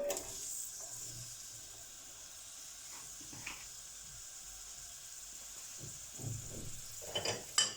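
Chopped onion sizzling in hot oil in a paella pan, a steady frying hiss that starts as it goes in. A sharp click or clatter near the end.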